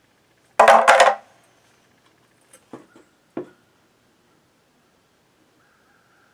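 Handling clatter from a plastic-bodied chainsaw and its chain guard: a quick run of several knocks and rattles, then two light clicks a couple of seconds later.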